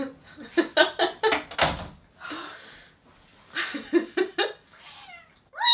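Laughter in short bursts, with a single door knock or thud about a second and a half in, then more laughing a couple of seconds later.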